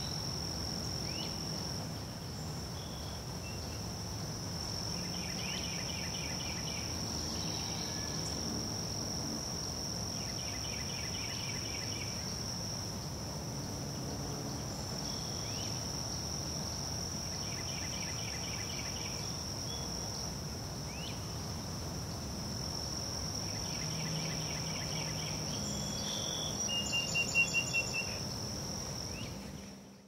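Crickets chirring in one unbroken high-pitched trill, with a bird repeating a short patterned call about every five to six seconds. Near the end a louder quick run of bird notes sounds, and then everything fades out.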